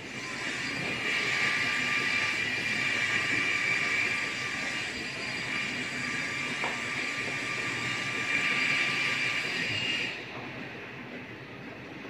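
A steady mechanical hiss with a high whine running on, which cuts off abruptly about ten seconds in, leaving quieter background noise.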